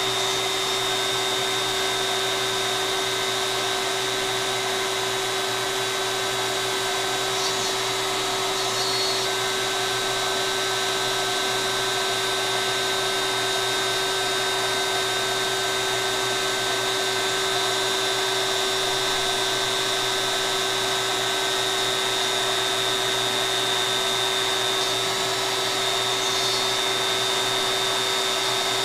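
Compact DeWalt router spinning on a CNC machine's gantry while the machine cuts a part: a steady, even whine that holds one pitch throughout.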